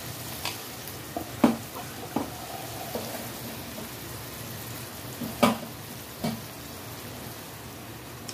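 Chopped onions frying in a kadhai with a steady sizzle while a perforated steel spoon stirs them, scraping and knocking against the pan several times, loudest about one and a half and five and a half seconds in.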